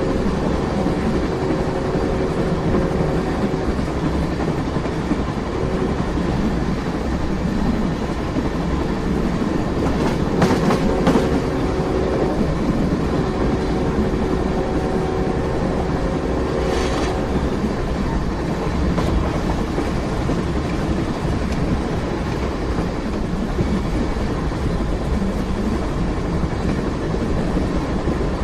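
Train running on rails: a steady rumble that holds at an even level, with a few sharp clanks about a third of the way in and one more a little past halfway.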